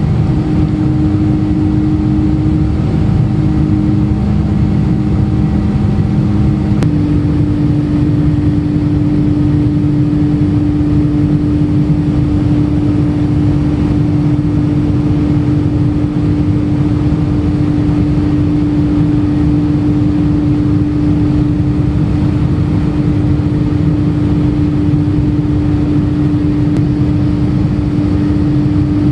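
Jet airliner's engines during takeoff: a steady, loud rumble with a droning hum that changes pitch slightly about seven seconds in.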